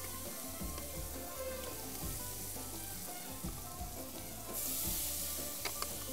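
Food sizzling in pots on a gas burner as raw shrimp are tipped into a tomato and spice sauce; the sizzle grows louder about four and a half seconds in, with a couple of light clicks near the end.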